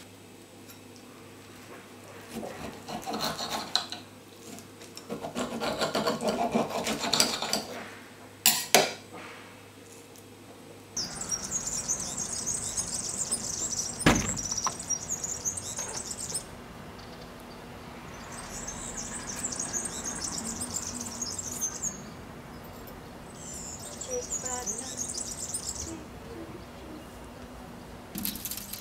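Knife and fork cutting and scraping on a ceramic plate, with a few sharp clinks. Then birds chirping in repeated bursts outdoors, a single sharp knock about halfway, and near the end the clunk of the Land Rover Santana 109 Series III's door being opened.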